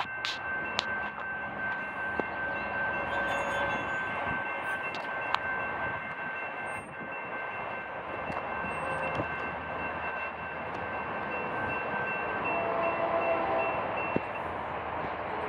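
Railroad grade crossing warning bell ringing steadily as the crossing signals flash, stopping near the end as the gate arms come down, over steady background noise.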